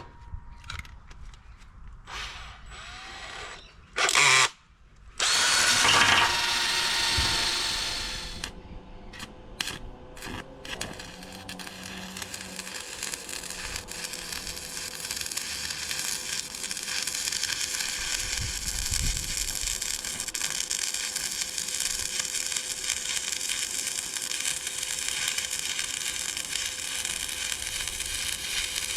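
A power tool runs in short bursts and spins down. Then, from about ten seconds in, steady crackling and sizzling of an electric arc welder laying a bead on a steel trailer frame.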